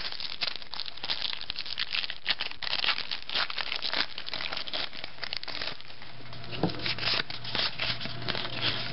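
Shiny foil wrappers of trading-card packs crinkling as a pack is pulled from the box and torn open, with many quick crackles and rustles.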